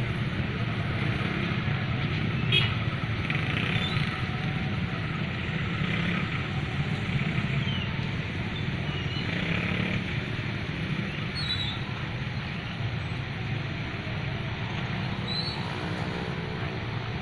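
Steady low engine and rolling noise of vehicles, without a clear start or stop.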